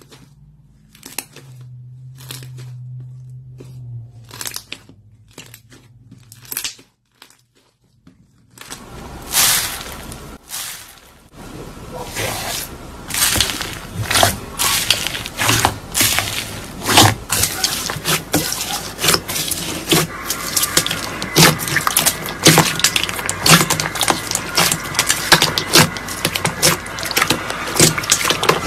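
Hands playing with slime: a few scattered pops and clicks as the slime is stretched, then from about nine seconds in a dense, ongoing crunching and crackling as fingers press and squeeze slime packed with foam beads.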